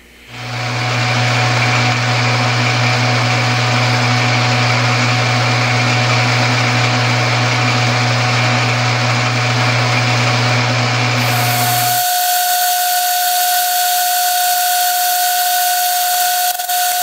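Metal lathe running steadily as a drill held in the tailstock chuck is fed into the end of the spinning hex bar stock. About twelve seconds in, the low hum drops out and a steady high whine carries on.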